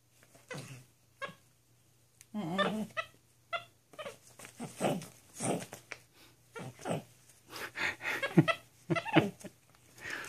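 Capuchin monkey giving a string of short, pitched calls, mixed with the crinkle and rustle of catalog pages being handled.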